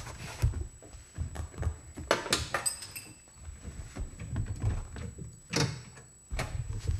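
Handling noise from a race car's cockpit as the seat and harness belts are worked loose: soft knocks, thuds and rubbing, with a short metallic clink about two and a half seconds in.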